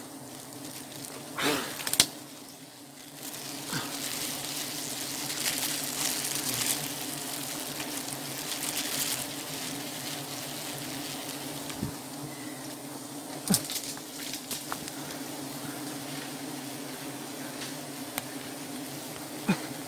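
Disturbed wild honeybees buzzing steadily around their opened nest, with plastic bag crinkling during the first part and a few sharp clicks.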